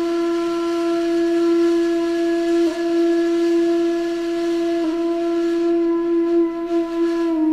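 A reedy wind instrument holding one long, steady note, with a brief wavering in pitch near the end.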